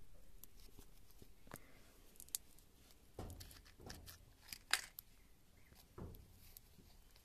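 Faint, scattered crinkles and small knocks of a plastic wrapper and thin sticks being handled in a clay cooking stove as the wrapper is lit to kindle the fire.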